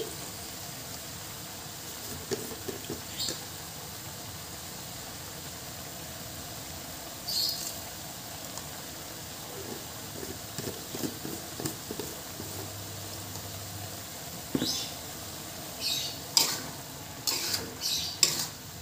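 Chinese cabbage and shrimp sizzling steadily in a wok. A metal spatula scrapes and clatters against the pan now and then, several times in quick succession near the end.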